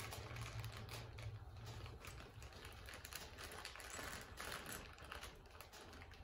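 Faint, irregular clicking and rustling of hands sorting small metal hardware and plastic parts bags on a worktable.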